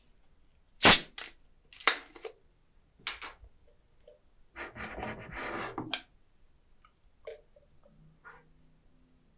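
Screw cap of a plastic Sprite bottle twisted open: a sharp crack about a second in as the seal breaks, a few more plastic clicks, then a hiss of escaping carbonation lasting a second or two. Near the end the soda begins to pour into a glass mug.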